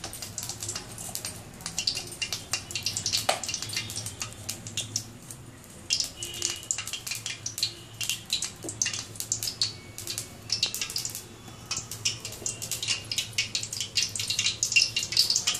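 Cooking oil heating in an aluminium kadai on a gas burner, crackling and spitting in quick, irregular ticks over a low steady hum.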